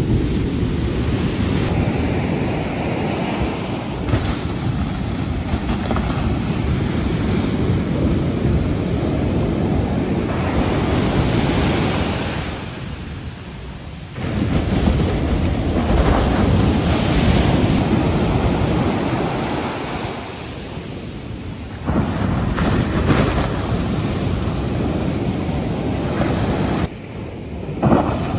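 Large hurricane-swell surf breaking close to shore, a continuous wash of crashing waves and foaming whitewater, with wind on the microphone. The level dips and then jumps back up abruptly a few times.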